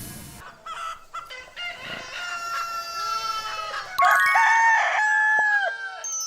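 Rooster crowing: shorter calls first, then one long, loud crow about four seconds in that drops in pitch at its end.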